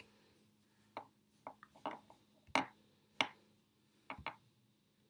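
About eight short, sharp clicks and taps at uneven intervals, from hands working a computer, over a faint steady low hum.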